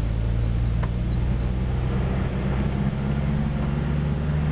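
Car engine running with steady road noise, heard from inside the cabin as the car climbs a winding mountain road. The engine note shifts slightly about two seconds in.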